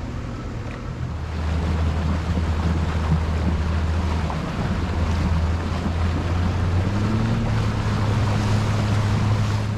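Tiller-steered outboard motor pushing a small boat under way, its engine getting louder about a second in and stepping up in pitch about seven seconds in, with wind and water noise.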